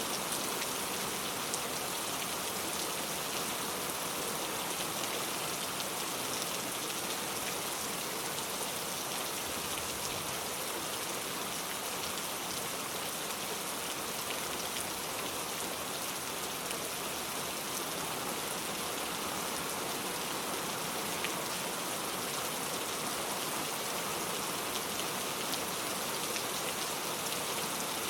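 Heavy rain falling in a steady downpour: a dense, even hiss of drops hitting a surface, with faint scattered drop ticks.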